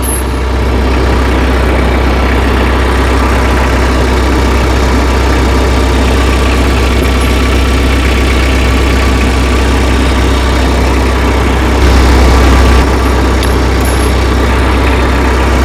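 Tractor engine idling steadily with a deep, even hum, briefly louder about twelve seconds in.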